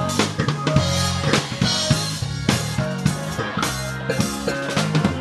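Live gospel band playing, driven by a drum kit with regular kick and snare hits over sustained guitar and bass notes.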